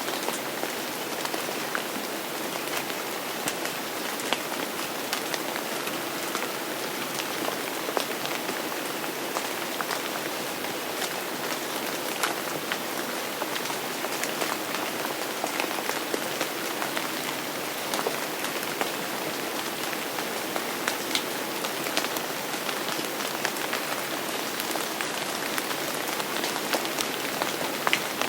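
Steady rain falling on a hard surface, a dense even hiss with many distinct individual drops ticking through it.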